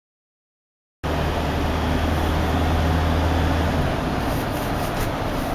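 Silence, then about a second in, the steady drone of a car cruising at highway speed heard from inside the cabin: road and engine noise with a deep low hum that eases slightly partway through.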